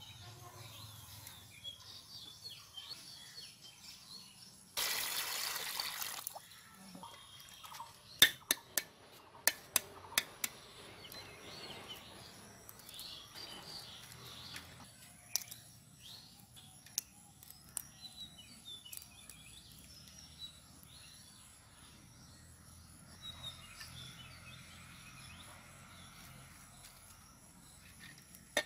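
Boiled duck eggs being cracked and peeled by hand in a bowl of water: a run of sharp taps about eight to ten seconds in as shells crack, scattered clicks and light splashing after, with birds chirping in the background. A louder burst of hiss lasting about a second and a half comes about five seconds in.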